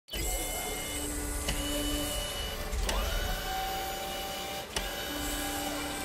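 Mechanical sound effects: a motorised whirring with held tones that shift pitch every second or two, broken by three sharp clicks, one followed by a short rising whine.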